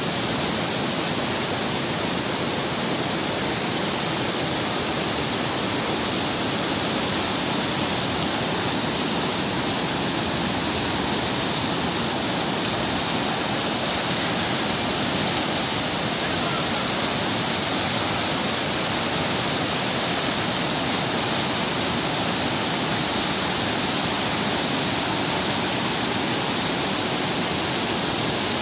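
Muddy floodwater rushing past in a steady, unbroken flow of water noise.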